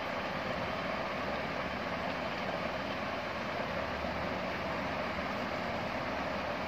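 Steady, even hiss of background noise that does not change.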